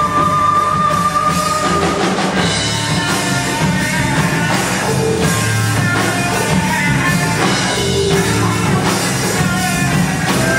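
Live band playing a rock arrangement of an Indonesian song, with electric guitar, drum kit and hand drums; a high note is held for about the first two seconds.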